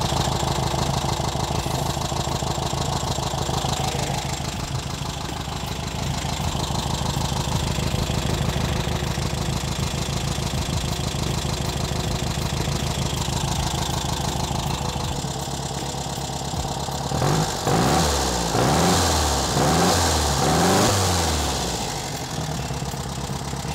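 Air-cooled VW Beetle flat-four engine idling steadily, warmed up and set to about 800 RPM after a vacuum-advance distributor with electronic ignition has been fitted and timed. About 17 seconds in, the throttle is blipped several times in quick succession, the revs rising and falling with each blip, before it drops back to idle.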